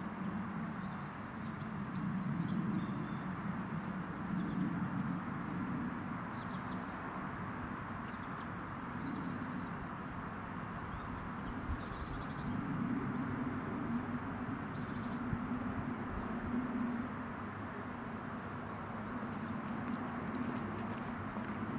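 Outdoor ambience: a steady low rumble that swells and fades every couple of seconds under an even hiss, with small birds chirping now and then.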